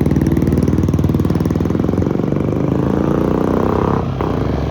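Motorcycle engine running with a rapid firing pulse. It revs up, rising in pitch, then drops back abruptly about four seconds in.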